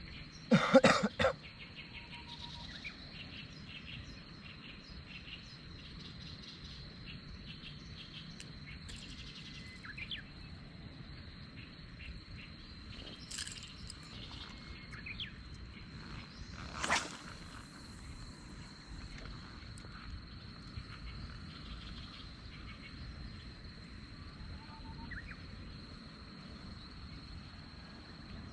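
Insects, crickets by the tags, singing a steady high trill with a low outdoor hum beneath. A short, louder pitched sound comes about a second in, and a few faint brief noises follow, one plainer near 17 seconds in.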